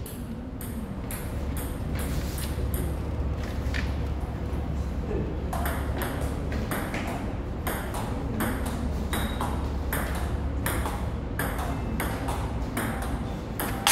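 Table tennis rally: the ball clicking back and forth off bats and table in quick, even strikes, about two to three a second.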